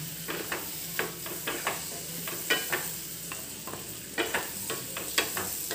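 Marinated paneer cubes sizzling as they are tipped from a glass bowl into a hot steel kadai where onions are frying in butter and oil. Many light, irregular clicks and scrapes run over a steady sizzle.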